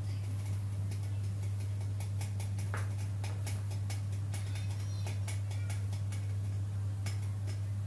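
A steady low hum, with scattered light clicks and ticks through the middle.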